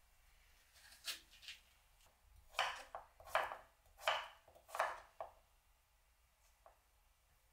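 Kitchen knife chopping pumpkin on a wooden cutting board: about six firm cuts in quick, uneven succession, after a couple of lighter knocks.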